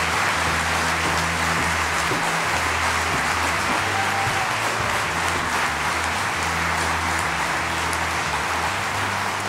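Theatre audience applauding steadily over walk-on music with a deep, repeating bass line.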